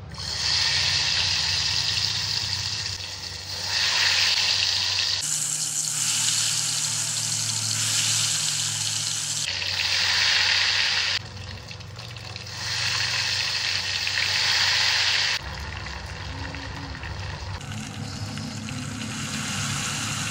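Ghevar batter poured in a thin stream from a squeeze bottle into hot ghee in a small steel saucepan, the ghee sizzling loudly in surges of a few seconds as the batter goes in. The sizzling settles to a quieter, steady frying for the last few seconds.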